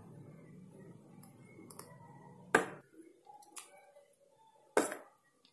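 Steel ladle clinking against the bowls as rice batter is ladled out: two sharp, ringing clinks about two and a half and five seconds in, with a few lighter taps between. A faint low hum stops about halfway through.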